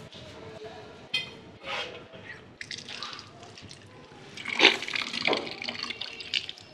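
Water from a wash-basin tap splashing as hands are washed under it, in irregular bursts, loudest a little past halfway.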